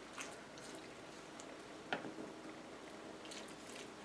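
Spoon stirring a thick, creamy chicken-and-vegetable filling in a shallow frying pan: faint wet squishing, with one sharper knock about two seconds in.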